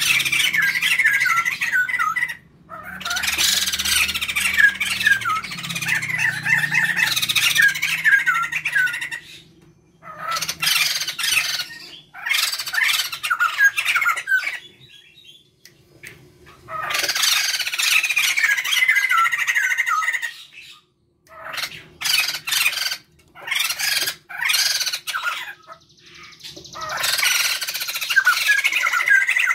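A pair of white-crested laughingthrushes, male and female, calling loudly together in bouts of rapid repeated notes, the bouts broken by several short pauses.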